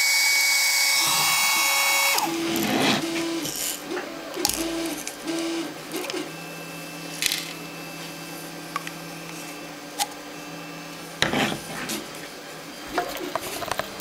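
A 3D-printed, USB-powered mini vacuum cleaner runs with a steady high-pitched whine from its small drone motor and four-blade propeller. The whine cuts off suddenly about two seconds in. After that come scattered short clicks and knocks as the plastic vacuum is handled.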